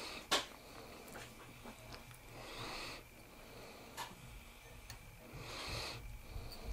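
Faint fly-tying handling noise as thread is wound onto a hook in a vise with a bobbin holder: a sharp click shortly after the start and another about four seconds in, with two soft hissing breaths between.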